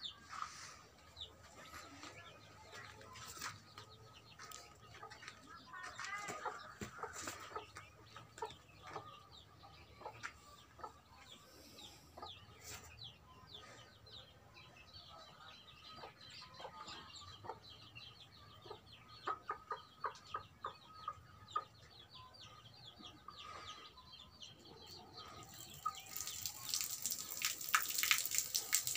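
Chickens clucking on and off in a farmyard. Near the end a louder rush of splashing water sets in.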